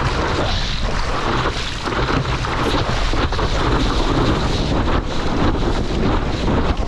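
Wind buffeting the action camera's microphone over the rush and slosh of ocean surf around a surfer in the water.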